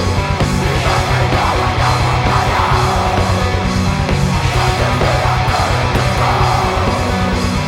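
Heavy metal band playing: distorted electric guitars and bass over fast, steady kick drums.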